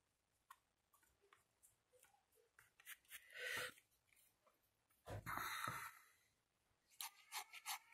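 Near silence with faint handling of paper pieces and a glue bottle: two short, soft rustles, then a few light clicks near the end.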